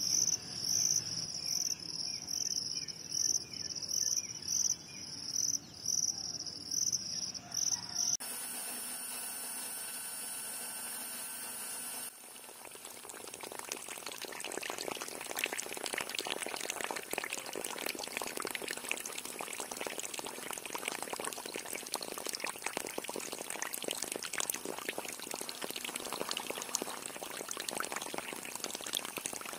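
Crickets chirping in a pulsing rhythm for the first eight seconds or so, then a steady hiss for a few seconds. After that, water from a thin plastic hose fed by a miniature water pump spatters onto a toy vehicle's body in a dense, crackling splash.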